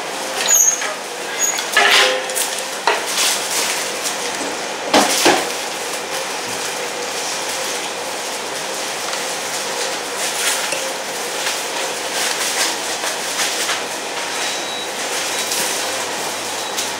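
Metal serving spoons and ladles clinking and scraping against stainless steel food pans as a burrito wrap is filled, over steady background noise. The sharpest clinks come in the first few seconds, with lighter ones later.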